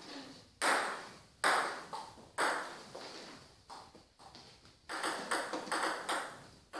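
Table tennis ball striking bats and the table: a string of about nine sharp clicks, irregularly spaced, each ringing on briefly in the hall.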